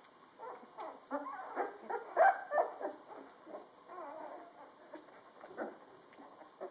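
A litter of two-week-old Drentsche Patrijshond puppies crying in many short, overlapping calls. The calls are loudest a little over two seconds in.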